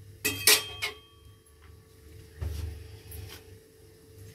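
A metal ladle clinking against the metal pressure-cooker pot, three quick ringing clinks in the first second, then a duller knock a little over two seconds in and one more light clink, over a faint steady hum.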